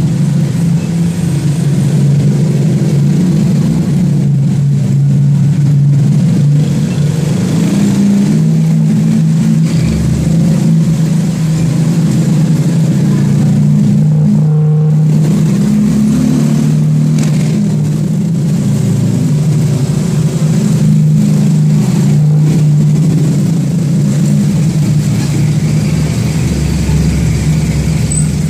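A motor vehicle's engine running steadily while under way, its drone rising and falling a little in pitch.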